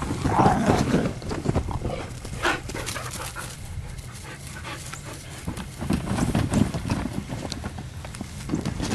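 Dogs running and playing on grass: quick, repeated paw thuds and scuffling.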